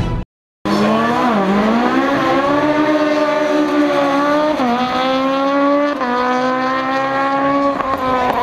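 Rally car engine held at high revs, starting suddenly about half a second in, its pitch briefly dipping and recovering about a second in and again near the middle.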